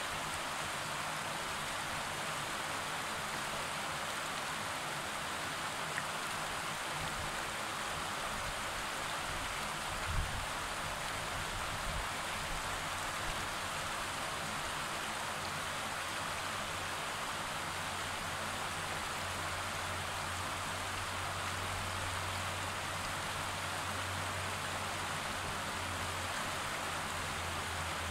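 Fast river running over rocks in rapids: a steady rush of water.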